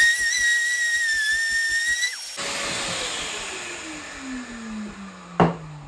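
Random orbital sander running at full speed on an epoxy-resin and maple board with a steady high whine. About two seconds in it is switched off, and its pitch falls steadily as it winds down. A single sharp knock near the end.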